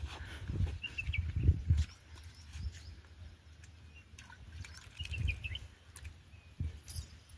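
Small birds chirping in short bursts, over irregular low rumbles and thuds on the microphone, loudest in the first two seconds.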